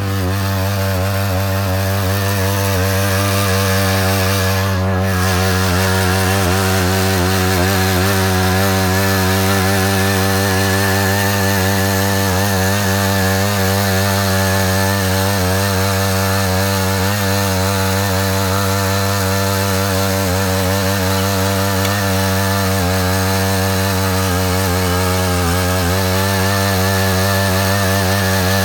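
Matsuda walk-behind power tiller's engine running steadily under load while its ditching attachment cuts a trench in the soil.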